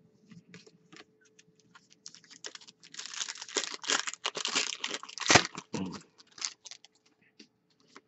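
Wrapper of a hockey card pack torn open by hand: a few seconds of dense crinkling and crackling plastic, with one sharper snap about five seconds in. Light clicks of cards being handled come before and after.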